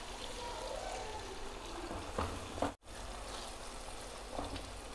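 Water pouring from a steel jug into a pan of chicken masala, a steady trickling splash. A few light knocks of a spatula in the pan come about two seconds in and again near the end.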